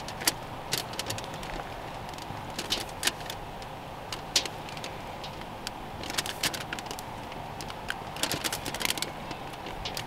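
A knife scoring slits in puff pastry on parchment paper over aluminium foil: scattered light crinkles and ticks of the paper and foil in small clusters, over a steady background hum.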